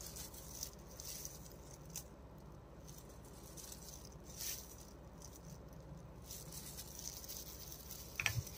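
Faint patter of salt spooned into a steel bowl of spice paste, with soft handling sounds and a light click near the end.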